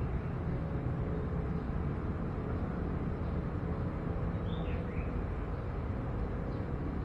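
Steady low outdoor background rumble, with a bird chirping a few times about four and a half seconds in.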